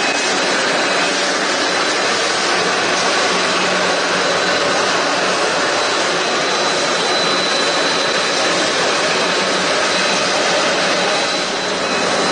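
A4 paper sheet-cutting machine running steadily, its rollers and slitting unit drawing the paper web through: an even, loud mechanical rushing noise with a thin high whine in it.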